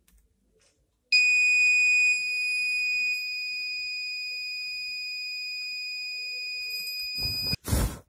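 Piezo buzzer of a homemade fire alarm sounding one continuous high-pitched tone, set off by a lit match held against the box. It starts about a second in and cuts off near the end, followed by a brief rush of noise.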